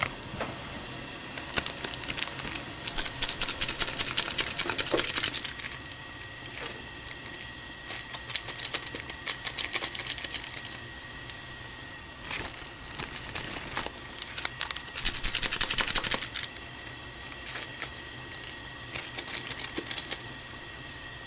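Plastic ramen seasoning sachets crinkling and being shaken out over the pot, in about five bursts of rapid crackling, the longest a few seconds in and another about two-thirds through.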